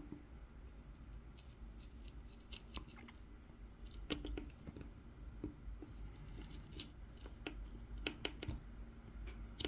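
Tip of a Mora 106 carving knife scoring a fine line into the wood of a spoon: faint scratching with scattered sharp ticks as the blade cuts, the loudest tick about four seconds in.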